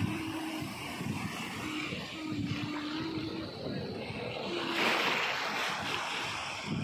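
Sea surf breaking and washing up onto the shore, with a louder surge of a wave about five seconds in.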